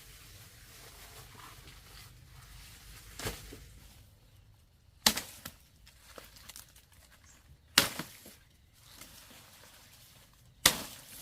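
Three sharp knocks about three seconds apart, each trailing off briefly, with a fainter knock a few seconds before them.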